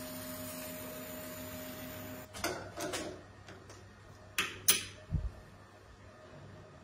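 Wood lathe running with a steady hum and hiss while a spinning resin vessel is buffed with a paper towel; a little over two seconds in the hum stops. Handling noises follow, with two sharp clicks and a low thump as the vessel is taken off the lathe chuck.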